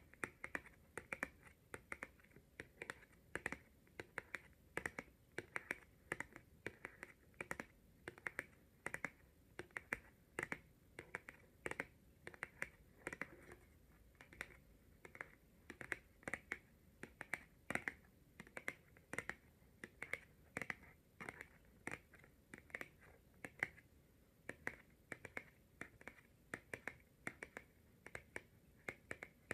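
Long natural fingernails tapping on tarot cards: a continuous run of quick, light clicks, several a second, in uneven clusters.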